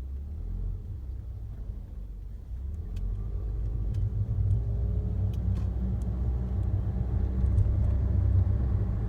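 Toyota Estima minivan on the move, a low rumble of road and running noise building as it picks up speed, with a few light clicks scattered through it.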